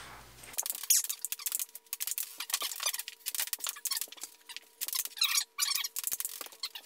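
Ping pong ball clicking off paddles and table in a rapid, irregular patter, with a few squeaky chirps mixed in and a faint steady tone behind.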